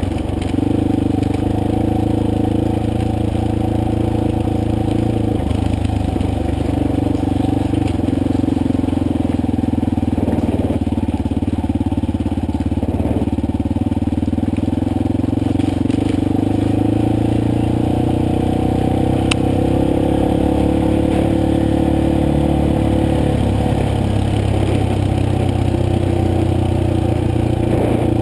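Motorcycle engine running steadily under way, its pitch rising a little about two-thirds of the way through and then easing back.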